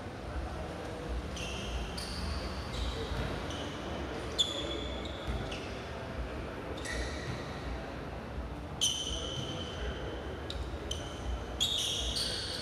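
Court-game practice sounds: repeated short, high sneaker squeaks on a hard floor and a ball bouncing, with one sharp knock about four and a half seconds in.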